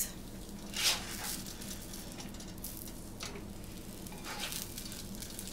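Corn-flour arepas sizzling steadily on a hot oiled griddle while a silicone spatula flips them. Three short noises of the spatula and arepas on the pan stand out over the sizzle, the loudest about a second in, then near three seconds and again near four and a half.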